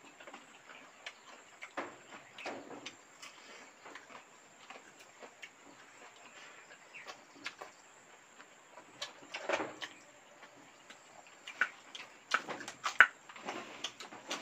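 People eating rice and fish curry by hand and with a spoon: scattered wet mouth clicks and chewing, with a few sharper taps in the last few seconds.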